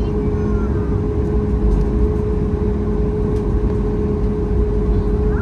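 Boeing 737 MAX 8 taxiing, heard from inside the cabin: a steady low rumble and even noise with a constant hum from its CFM LEAP-1B engines at low thrust.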